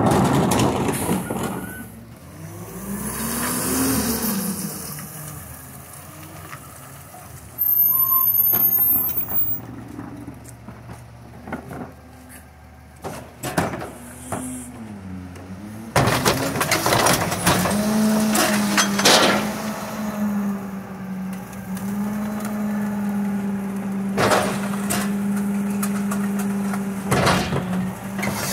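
Autocar ACX rear-loader garbage truck with a McNeilus body: its engine rises and falls in pitch as the truck moves up. From about halfway through it settles into a steady drone while the cart tipper works, with several sharp knocks and bangs of carts and the loading gear.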